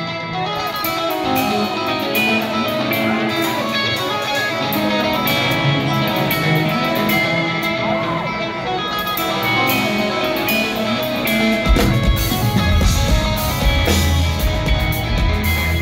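Live instrumental progressive metal played on eight-string electric guitar with drums: fast, intricate guitar lines, then a heavy low end comes in about twelve seconds in.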